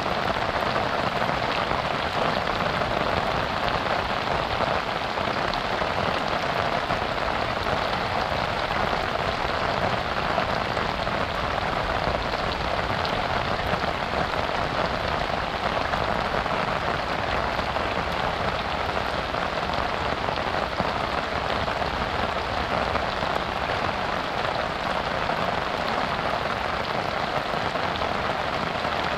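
Heavy rain falling steadily, an even, dense hiss of drops with no thunder.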